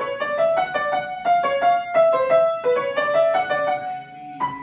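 Grand piano played by a child: a quick melody of single notes, about five a second. After a short pause near the end, a couple more notes follow.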